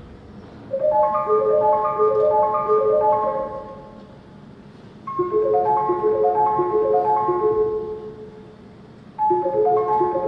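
Music on a marimba-like mallet instrument: three phrases of quick, repeating broken-chord notes, each lasting about three to four seconds and fading into a brief lull before the next begins.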